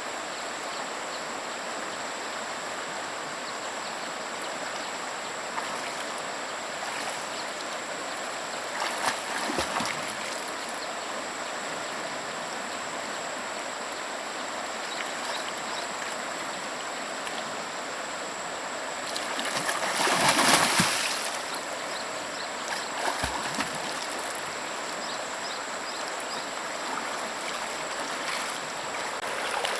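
A stream running steadily, with a louder rush of noise lasting about two seconds a little past the middle and a shorter one about a third of the way in.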